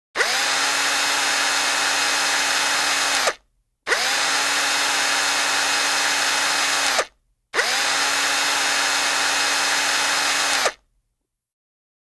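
Corded electric hand drill running in three steady bursts of about three seconds each, each one spinning up at the start and winding down at the end.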